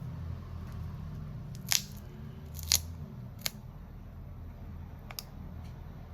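Small hand tools clicking against smartphone parts during a screen repair: three sharp short clicks about a second apart, then a fainter one near the end, over a steady low hum.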